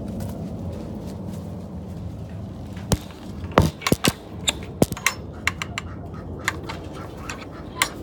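A quick run of sharp clicks and knocks, about a dozen in two and a half seconds starting about three seconds in, then a few more spaced out near the end, over a steady low background rumble.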